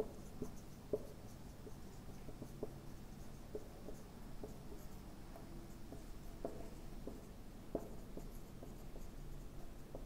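Marker writing on a whiteboard: a string of short, faint squeaks and taps from the tip as letters are written.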